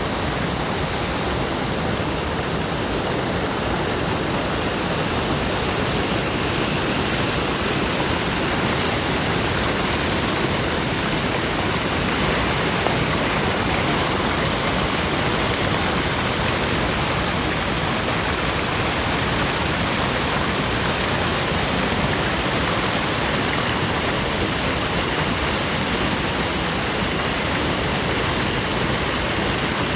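Waterfall: water falling and rushing in a steady, loud roar of noise without breaks.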